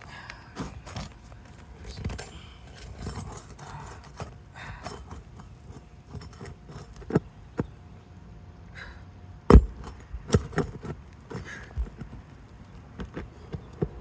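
A hand tool scraping and tapping on asphalt roof shingles while roofing nails are worked out from underneath: irregular clicks, scrapes and sharp knocks, the loudest about nine and a half seconds in.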